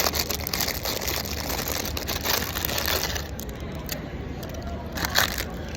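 Phone being handled and steadied close to the microphone: rubbing, crackling and clicking, busiest in the first three seconds with another burst about five seconds in, over a steady low hum.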